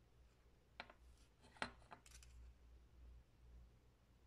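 Quiet hand soldering on a small circuit board: three small, sharp clicks and taps of the iron and solder wire against the board in the first two seconds, the middle one the loudest, then a brief soft hiss, over a faint low hum.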